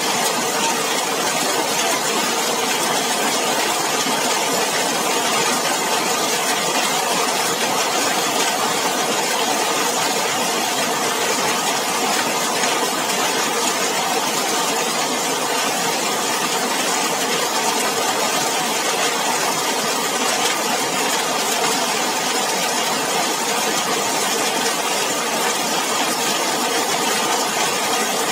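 Heavy rain beating steadily on a zinc sheet roof: a dense, even patter with no let-up.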